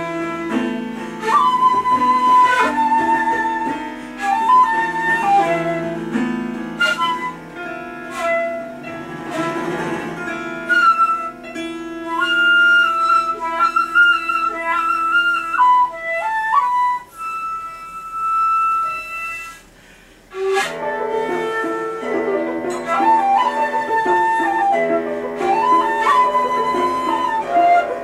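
Shakuhachi playing a slow melody over a grand piano played inside its case, its strings plucked and struck with mallets. The music drops almost to silence briefly about twenty seconds in, then resumes.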